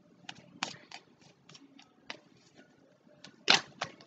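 A scattering of light, irregular clicks and taps, with one louder sharp tap about three and a half seconds in.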